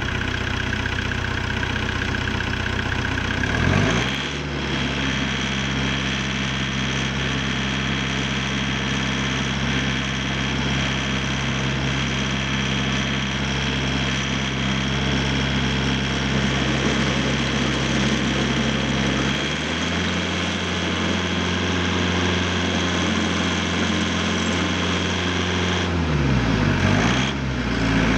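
Ditch Witch RT45 trencher's 49 hp Deutz diesel engine running. About four seconds in it revs up and holds a steady higher speed. Near the end its speed dips briefly and comes back up.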